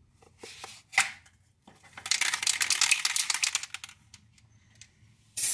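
Cap pulled off an aerosol spray paint can with a few light clicks and one sharp pop, then the can shaken hard for nearly two seconds, its mixing ball rattling fast inside. A spray hiss starts right at the end.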